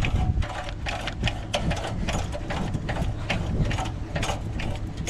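Manual crank-operated trailer tongue jack being hand-cranked, its gears clicking in a steady rhythm of about three clicks a second.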